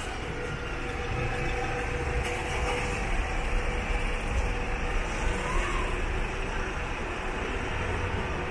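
Street traffic: the engines and tyres of cars and taxis moving slowly along the road, a steady low rumble.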